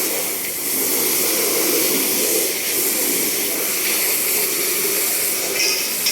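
Water spraying with a steady hiss, as when a cattle shed is hosed down. A short high squeak comes near the end.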